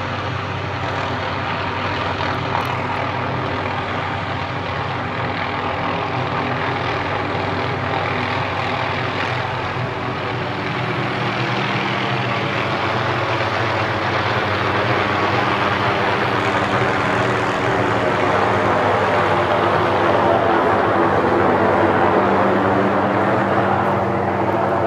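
Small helicopter flying low overhead, its rotor and engine running steadily, getting somewhat louder in the second half.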